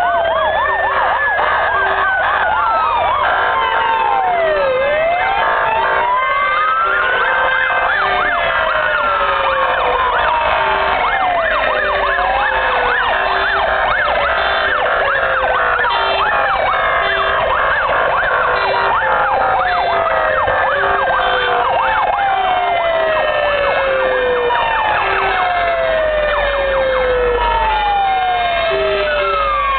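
Many fire engine sirens sounding at once as a column of fire trucks drives past: slow wails rising and falling, fast warbling yelps, and a siren sweeping downward about every three seconds. Truck engine rumble grows louder near the end as a fire engine passes close by.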